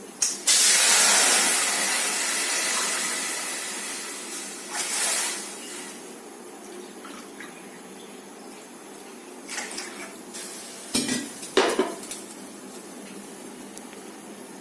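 Water poured into a hot pan of dry-roasted neem flowers and dry ginger, hissing loudly as it hits the hot metal and dying away over a few seconds; a second, shorter hiss about five seconds in. Near the end, a few sharp clinks of metal utensils against the pan.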